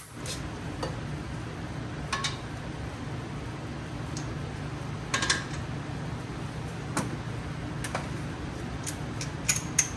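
Scattered light metallic clicks and clinks of hand tools and bolts during work on a car's suspension, over a steady low hum.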